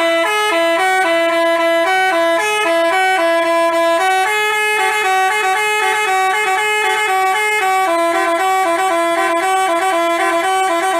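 Telolet basuri bus horn, a multi-tone electric horn, playing a melody: loud notes stepping quickly up and down in two parts at once, cutting off abruptly at the end.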